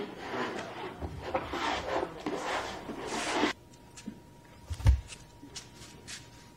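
A plastic squeegee scraping excess epoxy resin off the fibreglass cloth on a wooden strip kayak hull, in repeated rasping strokes that stop abruptly about three and a half seconds in. After that it is quieter, with a faint steady hum, a few light clicks and one sharp thump near five seconds.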